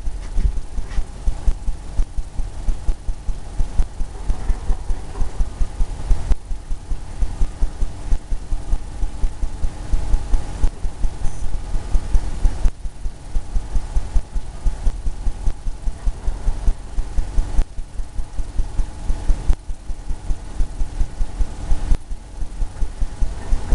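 Fan brush feathering paint on a stretched canvas: quick strokes and dabs make the canvas drum in a fast run of low thumps, several a second.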